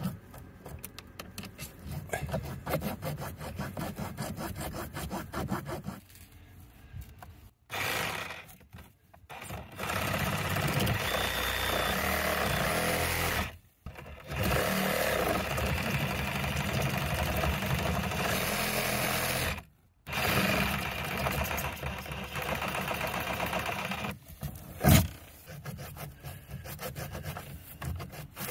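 Saw blade cutting into the glued-in PVC pipe piece inside a hot tub manifold socket: first a run of quick rasping strokes, then three longer stretches of steady cutting noise that start and stop abruptly. A single sharp knock comes near the end.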